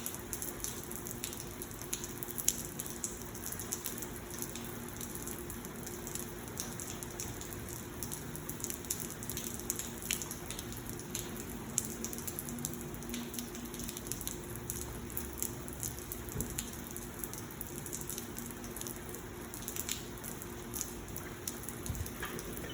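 Rain falling steadily, with many separate drops ticking, over a faint low steady hum.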